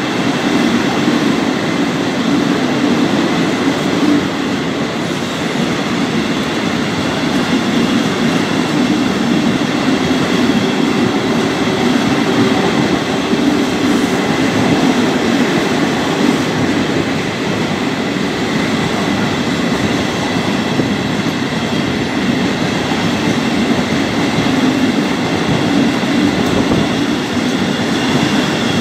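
Long freight train of empty double-deck car-carrier wagons rolling past at steady speed: a continuous rolling rumble of wheels on rail, with thin steady high-pitched tones riding over it.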